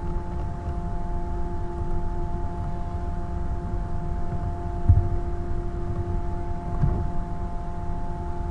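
Steady background hum and low rumble, with a few constant tones held through. A low thump about five seconds in, and a smaller one near seven seconds.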